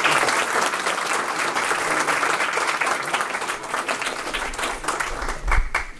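Applause from a small audience and the board members, at its fullest at first and thinning out toward the end.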